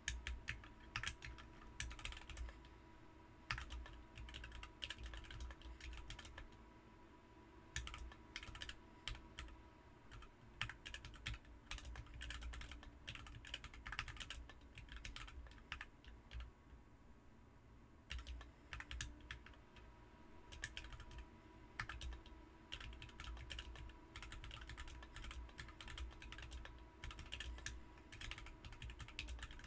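Typing on a BM43 40% mechanical keyboard fitted with Ms Piggy switches: a fast, irregular stream of key presses with a short lull about halfway through.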